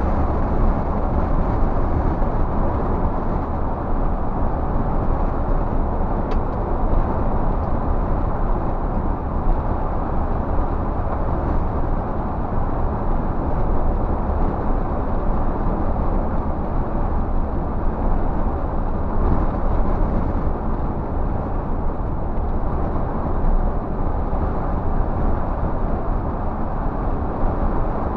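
Scania coach cruising on a highway, heard from the driver's cab: a steady diesel engine drone mixed with tyre and road noise, heaviest in the low end.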